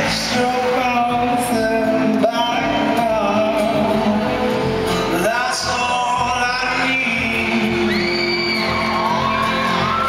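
Live concert music: amplified vocals over a strummed acoustic guitar, heard in a large reverberant arena. Fans in the crowd shout and whoop over the song.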